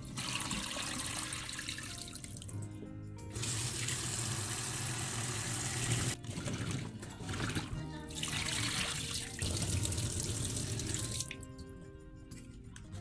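Tap water running into a stainless steel sink and over green beans in a metal bowl as they are rinsed and stirred by hand, breaking off briefly a few times. The running water stops near the end, leaving background music.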